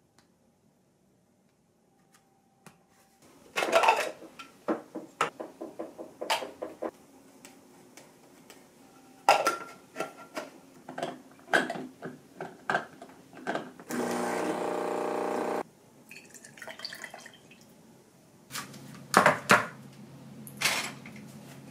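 Coffee-making clatter: a run of clinks and taps of metal and glass as ground coffee goes into an espresso portafilter, then a steady machine hum for about a second and a half. After that come quieter clinks and milk being poured into a glass.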